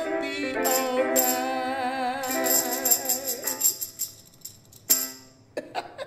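A song ending on a small electronic keyboard and a handheld tambourine. A held keyboard chord with a wavering sung note over it and quick tambourine shakes fades out after about three and a half seconds. About five seconds in comes one short final chord with a tambourine hit, followed by a couple of light jingles.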